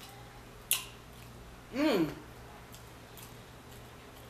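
A sharp crack of king crab leg shell being broken apart by hand, then about two seconds in a short vocal sound from the eater whose pitch rises and then falls.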